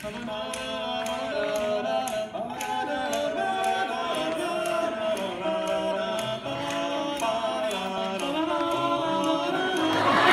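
Male barbershop quartet singing a cappella in four-part harmony, holding sustained chords that change every second or so.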